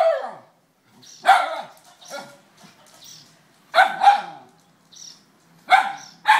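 Kintamani dog barking repeatedly: short, sharp barks about a second apart, some coming in quick pairs.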